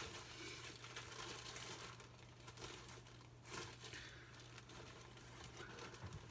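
Faint crinkling of a plastic bread bag as it is opened and slices are taken out.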